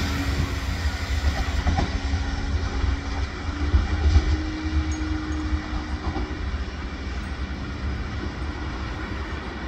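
Diesel locomotive D744 027 running light at low speed and drawing away: a low engine rumble with a steady hum that steps up slightly about three seconds in, then fades as it recedes, with a few faint clicks from the wheels on the track.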